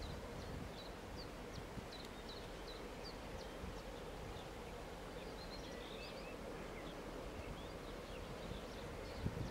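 Quiet, steady low rumble of a locomotive slowly hauling a train of tank wagons, with small birds chirping repeatedly over it.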